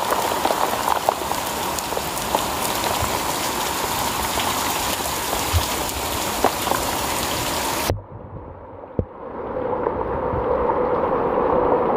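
Heavy rain falling steadily, a dense hiss with scattered louder drop hits. About eight seconds in the sound cuts off suddenly. After a single knock, the rain returns duller and builds back up.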